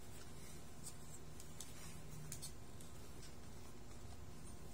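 Faint handling sounds of Marshall Major IV over-ear headphones being turned and folded in the hands: a few light, scattered clicks and soft rubbing.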